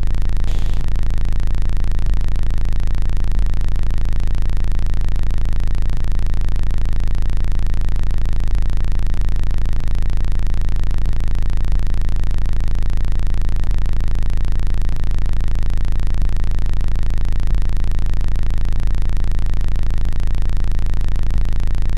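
A loud, steady, low drone from an electronic soundtrack. It holds one unchanging level, with a few faint soft pulses in the bass and a brief faint crackle about half a second in.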